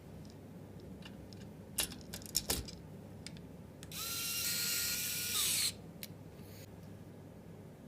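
Small cordless electric screwdriver running for under two seconds, its motor whine rising slightly and dropping as it stops, after a few sharp clicks and taps of parts being handled.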